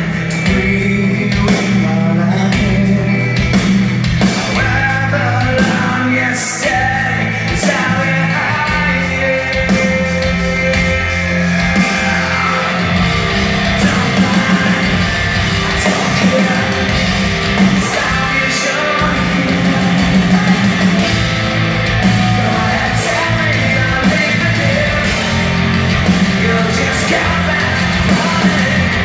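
A rock band playing live: electric guitar, bass guitar and drum kit, with a man singing. Heard from the audience in a large hall.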